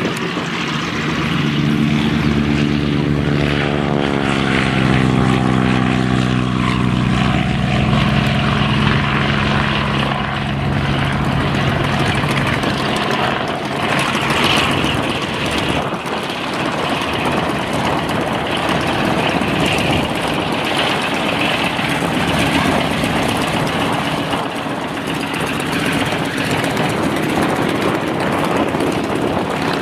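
Single-engine propeller aircraft running. A Dornier Do 27 passes on its takeoff run, its engine note falling steadily in pitch over several seconds. Then a Stinson Reliant's radial engine runs at low power as it taxis.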